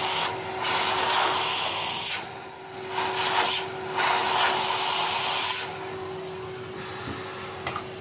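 Numatic Henry cylinder vacuum cleaner running, its metal wand sucking wood chips and sawdust out of freshly drilled lock-mortice holes in a door edge. It is a steady hiss and motor hum that swells and dips several times as the nozzle moves over the holes, and it is a little quieter over the last couple of seconds.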